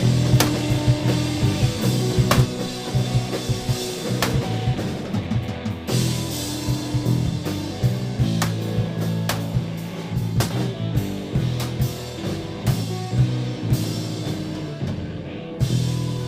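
Rock music played on a drum kit, with sharp drum hits over sustained low bass notes.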